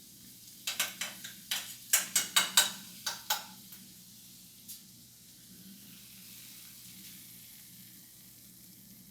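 A utensil stirring and scraping in a dish: about a dozen quick, sharp strokes over some three seconds, then only a faint steady hum.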